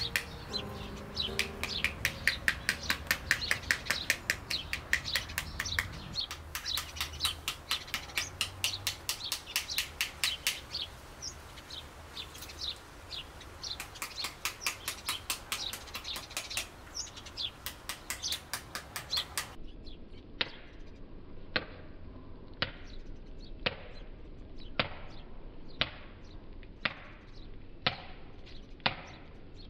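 Halved pomegranates struck on the skin with a wooden spoon to knock out the arils: rapid taps, about five a second, then slower taps about two-thirds of the way through. Birds chirp faintly in the background.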